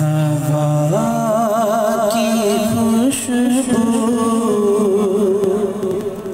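A man singing a naat solo, a devotional song in long held notes that waver in pitch. The voice comes in abruptly at the start and eases off near the end.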